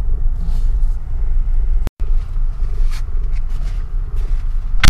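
Car driving up a snow-covered road, heard from inside the cabin: a steady low engine and tyre rumble. The sound drops out briefly about two seconds in, and a sharp knock comes just before the end.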